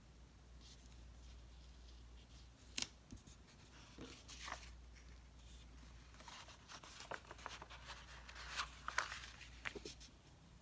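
Sticker sheet and paper pages rustling and crinkling as planner stickers are peeled off and pressed onto the page, with one sharp click about three seconds in. The crackling is densest in the second half.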